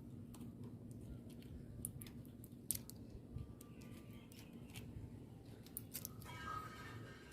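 Faint, scattered clicks and crackles of paper slot insulation being folded over the copper windings and pressed into the slots of a ceiling fan stator, over a steady low hum.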